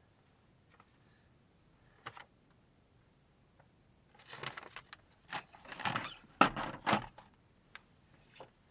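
Handling noise: a single click about two seconds in, then a few seconds of close rustling and clicking, with one sharp click standing out.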